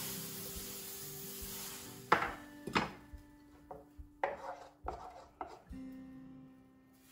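A hot frying pan sizzling briefly, then a run of sharp knocks and clinks as the pan goes back on the electric stove and a metal ladle works in a bowl of pancake batter, the loudest two knocks about two seconds in. Soft background music with held notes plays under it.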